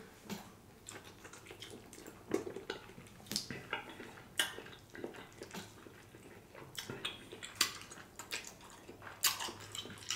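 Faint, irregular wet clicks and crackles of cooked lobster meat and shell being pulled apart by hand over a plate.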